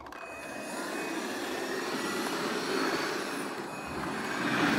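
Bissell Bolt cordless vacuum's detachable handheld unit switched on and running: a steady rush of air under a thin motor whine that rises slightly in pitch.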